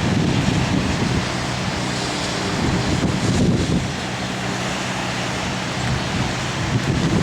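Strong wind rushing and gusting over the microphone, with a steady low engine hum from a vehicle running underneath.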